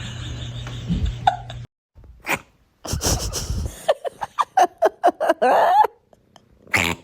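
A cat making a quick run of short, high squeaks, about four or five a second, that sound like a squeaky toy, with short sneeze-like huffs before them.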